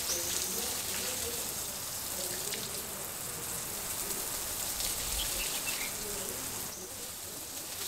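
Water spraying from a garden hose and pattering onto wet soil in a trench, a steady hiss, as hard, dry ground is soaked to soften it.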